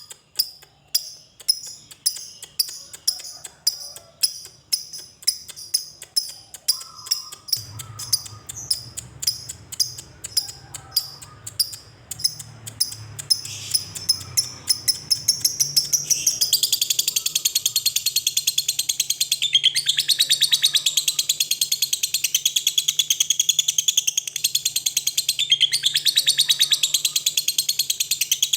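Lovebird calling: sharp single high chips at about two to three a second, quickening, which break about halfway through into a long unbroken rapid chatter. This is the 'ngetik' ticking running on into the long 'ngekek' trill that keepers want from a fighter lovebird.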